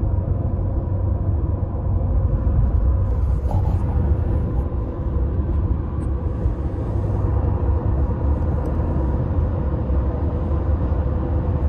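Steady low road rumble from a car driving at highway speed, heard from inside the cabin.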